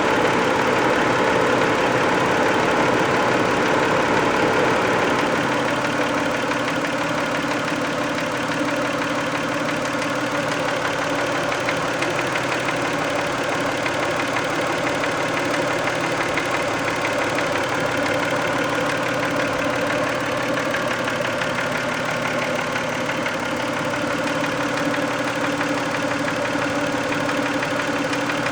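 1990 Toyota Camry 2VZ-FE V6 engine idling with a rapid knock riding on it; the engine speed drops a little about five seconds in. The owner does not know the knock's cause; his best guess is sludge or varnish stuck on a valve shim/bucket.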